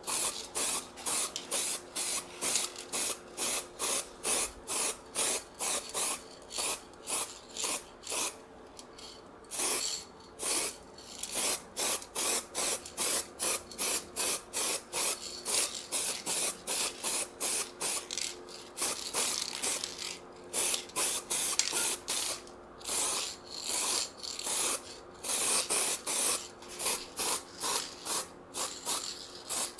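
Aerosol spray-paint can hissing in short repeated bursts, about two a second, with a brief pause about a third of the way through.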